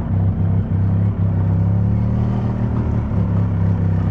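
Golf cart engine running steadily as the cart drives along, a low, even hum.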